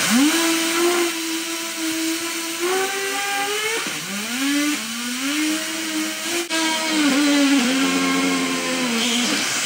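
High-pressure waterjet stream hissing as it spins a row of inline skate wheels at very high speed, with a loud whine from the spinning wheels that wavers in pitch, dips about four seconds in and climbs back.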